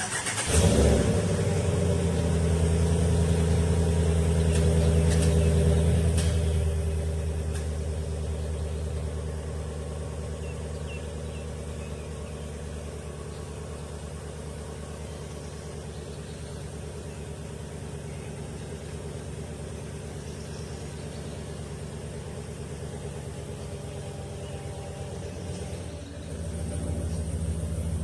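A vehicle engine starts and runs at idle. It is louder for the first few seconds, then settles to a steady, quieter idle, and gets louder again a couple of seconds before the end.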